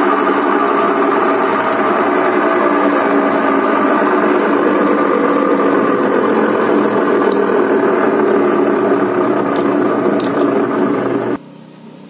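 Sharp top-loading washing machine's motor running in spin mode, a loud steady mechanical whirr, started through a manual spin timer wired in place of the faulty control module. It cuts off suddenly about eleven seconds in.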